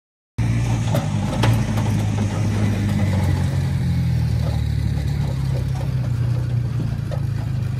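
An engine idling steadily, cutting in abruptly just under half a second in, with a few light clicks and knocks over it.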